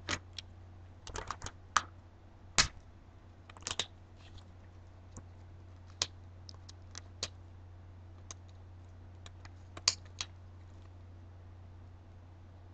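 Irregular light clicks and taps, a few in quick clusters, as gloved hands handle adhesive letter stencils on a wine glass. A low steady hum runs underneath.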